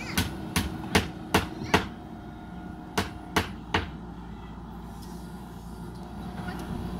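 Diesel engine of a JCB 3DX backhoe loader running steadily under a series of sharp knocks, about two and a half a second for the first two seconds, then three more between three and four seconds in. After that only the engine is heard.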